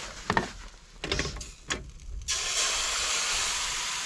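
A few knocks and clicks of a utensil against the pan, then a little over two seconds in, crêpe batter hits the hot pan and starts sizzling steadily.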